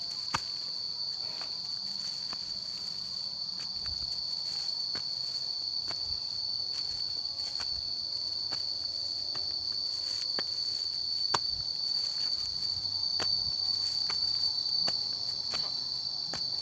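Insects chirring in one steady, unbroken high-pitched drone, with scattered light taps of footsteps on a stony path.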